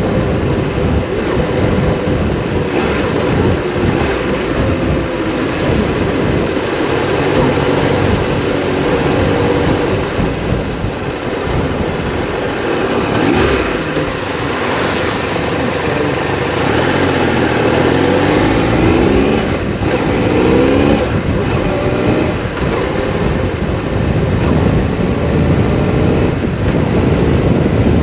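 Triumph Explorer 1200's three-cylinder engine running on the road under a steady rush of wind noise. The engine pitch climbs and drops several times over the second half, as the rider accelerates and changes gear.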